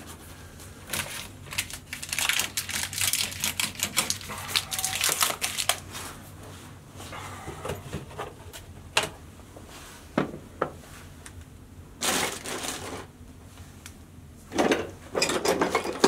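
Handling noise at a sump pump pit: rapid clicking and rattling of plastic fittings and cords being worked by hand, thinning to a few single clicks, then two short louder bouts of clatter near the end.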